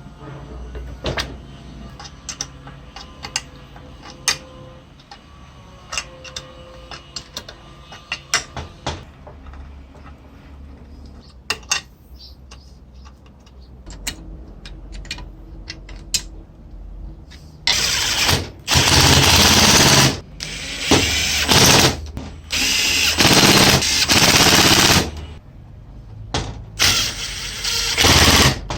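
Handheld power tool run in five or six loud bursts of one to two seconds each, starting about two-thirds of the way in. Before them come scattered small clicks and knocks of metal parts being handled.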